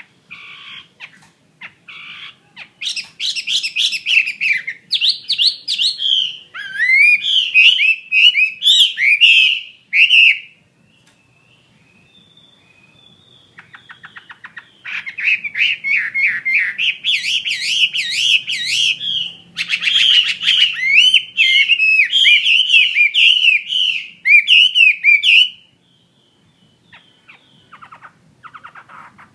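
Chinese hwamei singing: loud, rapid, varied whistled phrases in two long bouts separated by a pause of a few seconds, with softer scattered notes near the start and end.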